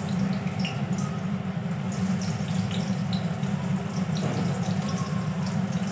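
Eggplant pieces sizzling in hot oil in an aluminium kadai as they are laid in one by one, with scattered small spits and ticks over a steady low hum.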